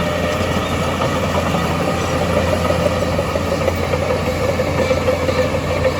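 Heavy diesel earthmoving machinery running steadily, with a low engine hum and a tone that grows slightly stronger in the second half.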